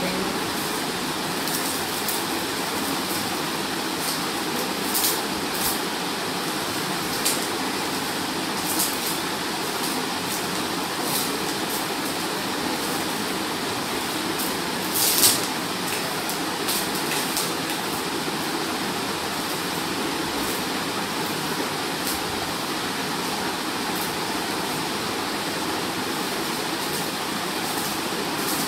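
Steady rushing noise, with a few short crackles of plastic wrap as hands press on the plastic-covered hair, the loudest about halfway through.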